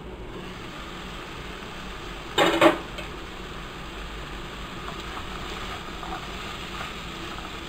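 A short clatter of cookware about two and a half seconds in, then a spatula stirring cooked chayote and gram dal in a non-stick kadai over a steady low sizzle.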